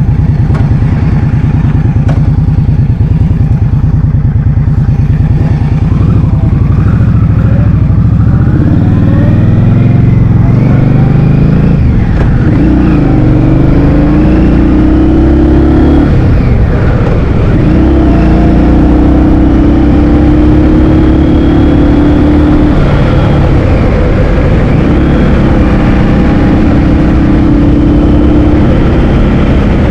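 Motorbike engine under way: it runs steadily, then climbs in pitch as it accelerates, with drops where the revs fall between pulls, before settling into a steady cruise.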